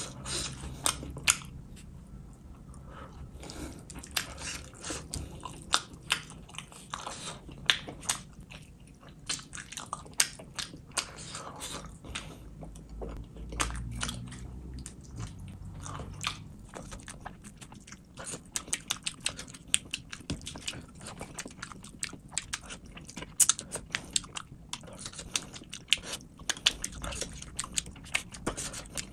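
Close-miked chewing of curried fish and rice eaten by hand: wet mouth smacks and sharp clicks several times a second, irregular, with a few louder smacks.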